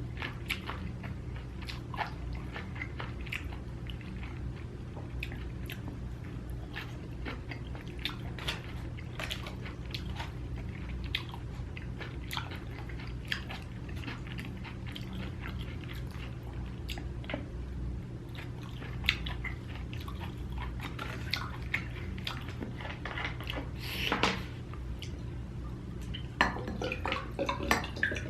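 Close-miked chewing of a mouthful of spicy stir-fried pork, kimchi and tofu, with many small wet mouth clicks and smacks, over a steady low hum.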